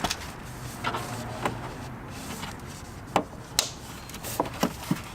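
Plastic push pins being pressed into a motorcycle's plastic front body panels: a series of sharp clicks and taps, the loudest two coming about three seconds in.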